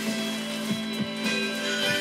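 Background instrumental music with plucked strings and a steady beat.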